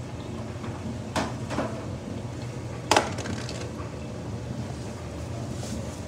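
Samsung front-loading washing machine turning its drum through a wash with a single towel: a steady low motor hum with water tumbling inside, broken by a few sharp knocks from the wet load, the loudest about three seconds in.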